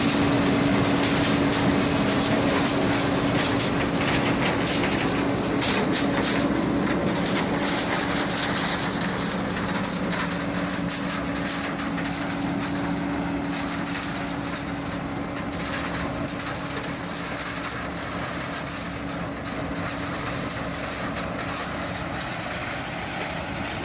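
John Deere 9550 combine running while harvesting corn: a steady machinery drone with a constant hum, joined by a spell of rattling clicks about five to seven seconds in.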